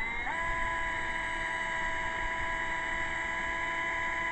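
Black & Decker cordless drill running free with the trigger held, its motor rising in pitch right at the start and then whining steadily at full speed. The sound shows that the new HPB12 replacement battery powers the drill.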